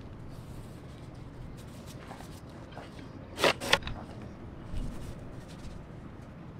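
Paintbrush strokes brushing epoxy primer onto a fiberglass boat hull: soft scrapes and rubs, with two sharper scrapes close together a little past halfway.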